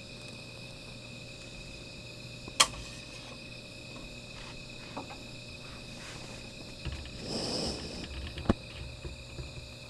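Insects trilling steadily on a high note, with a sharp crack about two and a half seconds in, then a short rustling swell and another crack near the end.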